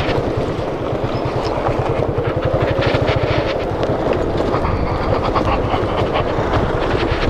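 Motorcycle engine running as the bike rides on, with a rapid, even low exhaust thump and scattered light ticks and rattles over it.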